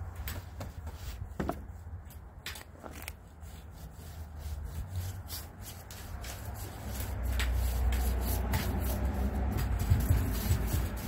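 Stain brush on an extension pole scrubbing back and forth across wooden deck boards, with a few light clicks near the start as the metal pole is handled. The scraping and a low rumble grow louder in the second half.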